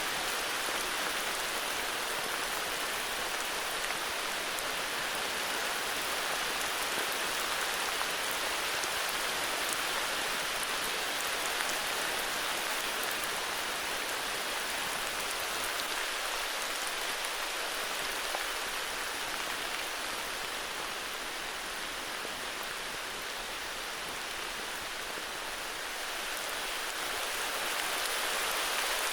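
Steady heavy rain falling, an even hiss of many drops with slight swells in strength.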